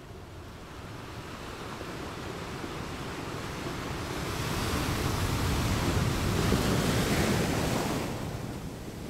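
A rushing noise like sea surf, swelling about four seconds in and falling back shortly before the end.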